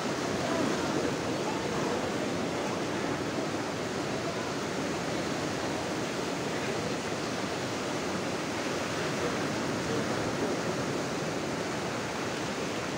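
Surf breaking and washing up on a beach: a steady rush of waves and foam.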